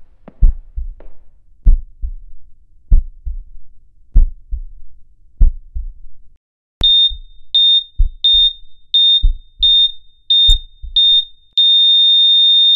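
Heartbeat sound effect, deep paired lub-dub thumps about every second and a quarter, joined about halfway through by a hospital heart monitor's short high beeps. Near the end the beeps give way to one long steady tone: the monitor flatlining.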